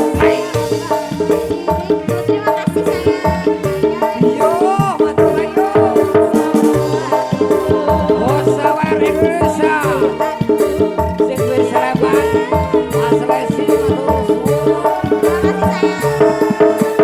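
Live band music without singing: sustained chords under a melody that slides up and down in pitch, with a busy beat of hand percussion and a shaker rattle.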